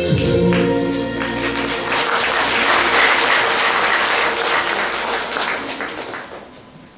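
Audience applauding at the end of a song. The accompaniment's last held chord dies away in the first second or two, and the clapping fades out near the end.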